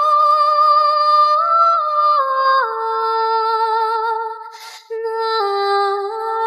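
Background music: a wordless, high melody of held notes stepping up and down with vibrato, like humming. It breaks off briefly with a short hiss about four and a half seconds in, then goes on.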